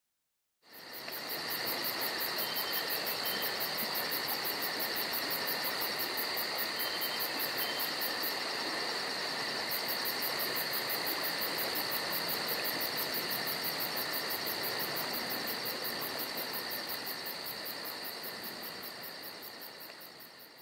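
Crickets chirping in a steady, evenly pulsing chorus over a high hiss, starting about half a second in and fading out near the end.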